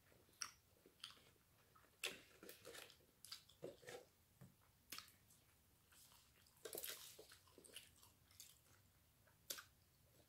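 Faint chewing and crunching of crispy fried chicken, a scatter of short crackles and bites.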